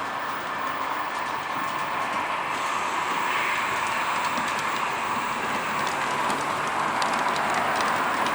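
Model train running on the layout's track: a steady whirr, with light clicking from the wheels over the rails that becomes more frequent in the second half.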